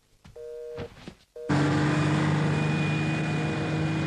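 A telephone line tone beeps twice, half a second each, while the call is being forwarded. About a second and a half in, it cuts to the loud, steady engine and road noise of a big truck on the move.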